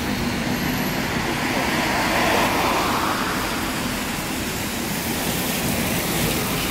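Scania OmniCity bus's diesel engine running as the bus draws closer and pulls in to the stop, over steady road traffic noise that swells around two to three seconds in.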